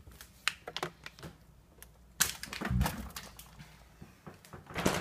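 Clicks, knocks and rustles of things being handled in a refrigerator, with a louder knock a little over two seconds in and another near the end.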